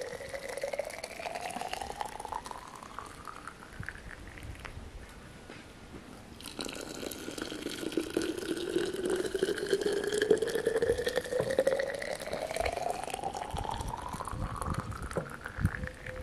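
Water pouring into tall glass jars of cranberries and sugar, the pouring tone rising steadily in pitch as each jar fills. One fill ends about four seconds in; a second starts about six and a half seconds in and keeps rising until near the end.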